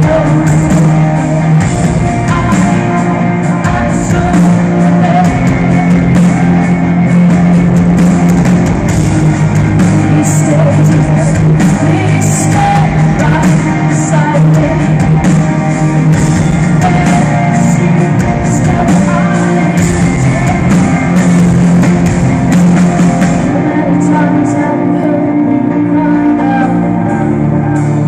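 Live band playing loud amplified rock music with singing, guitar and drums, heard in the reverberant space of an arena.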